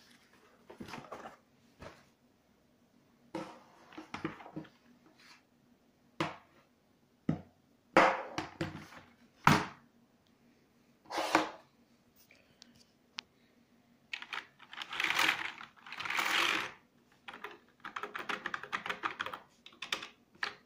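A4Tech X7 G800V gaming keyboard being handled: scattered plastic knocks and clatter as it is moved and set down, and a stretch of rustling about two-thirds of the way in. In the last few seconds comes a quick run of keystrokes as its keys are typed on.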